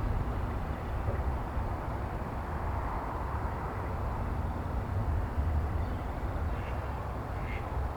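Wind buffeting the microphone, a steady low rumble and rush that rises and falls a little. A few faint short calls near the end.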